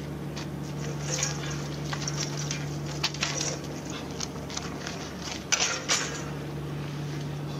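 A steady low engine hum, with scattered small clicks and rattles over it; the loudest cluster of clicks comes a little over five seconds in.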